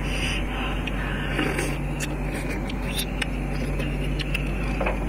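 Eating sounds, chewing and short clicks of bamboo chopsticks, over a steady background hum.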